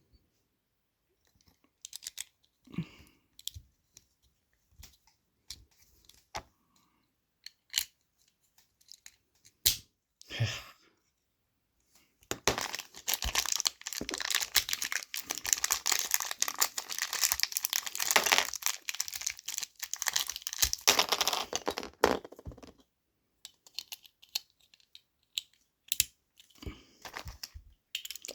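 Small plastic parts clicking and tapping as toy spinning tops are put together. For about ten seconds in the middle, plastic packaging crinkles and rustles steadily. More scattered clicks follow near the end.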